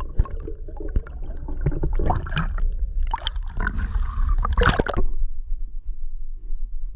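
Water sloshing and bubbling around an underwater camera as a freediver leaves the surface. The splashing and gurgling stop about five seconds in, leaving only a dull low underwater rumble.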